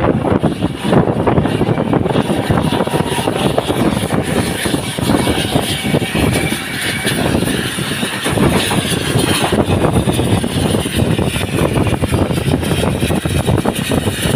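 Steam train running past close by: a loud, continuous rumble and clatter of the locomotive and its wheels on the rails.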